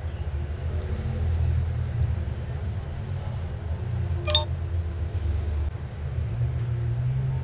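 Low steady background rumble, with one short, sharp, ringing click about four seconds in.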